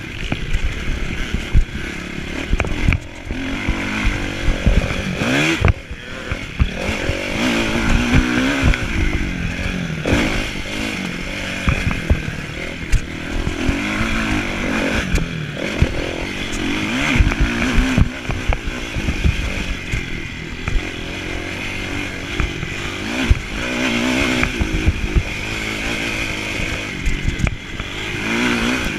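Kawasaki motocross bike's engine heard close up from on board, revving up and falling back again and again every couple of seconds. Steady jolting and wind buffeting run under it.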